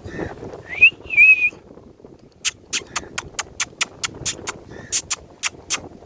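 Ringneck parrot giving two short whistled calls about a second in, a rising whistle and then a wavering note. A run of sharp clicks follows, about four a second, for some three seconds.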